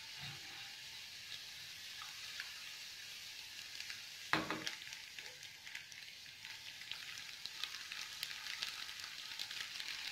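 Chopped garlic and cumin seeds frying in oil in a small pan for a tadka: a soft steady sizzle with fine crackles that grow busier toward the end. There is a single knock about four seconds in.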